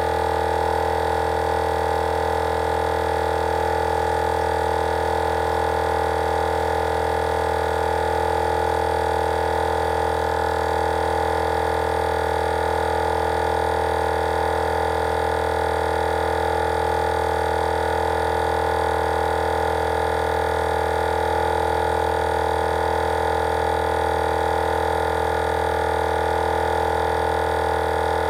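Wolfbox dual portable 12-volt air compressor running steadily under load while inflating a large off-road tire, a constant even hum.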